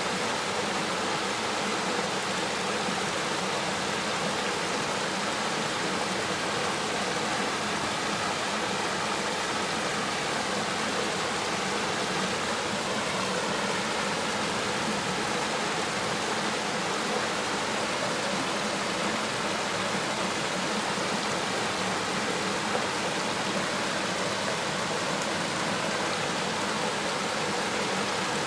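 River water flowing steadily over rocks, an even rushing and babbling.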